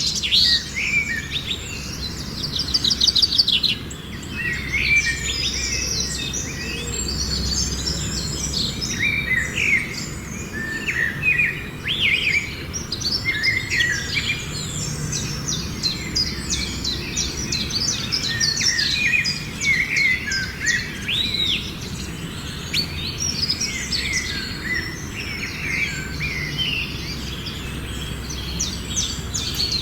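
Several birds chirping and singing, with many short overlapping calls and rapid trills.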